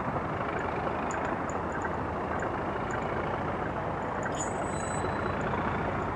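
Colas Class 37 diesel locomotive with its English Electric V12 engine running steadily as it approaches slowly.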